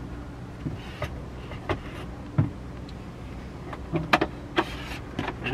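A table top being pulled out of its storage cradle under a seat, giving a few scattered knocks and clatters, over a steady low hum.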